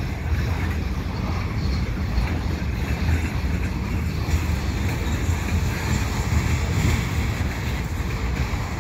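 Covered hopper cars of a freight train rolling across a girder railway bridge: a steady rumble of steel wheels on the rails.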